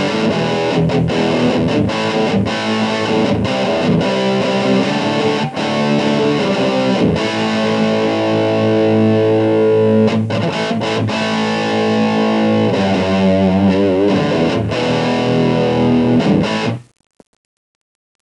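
Distorted electric guitar played through a mini Marshall JCM800 amplifier into a small cabinet of RFT L2403 12.5 cm TV speakers, with sustained notes and chords. It stops abruptly near the end, followed by a faint click.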